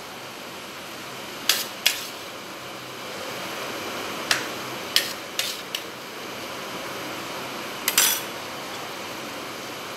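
A metal spoon clinking against a steel plate and a glass bowl while chopped banana is scooped across, in about seven sharp clinks: two about a second and a half in, a cluster between four and six seconds, and the loudest about eight seconds in.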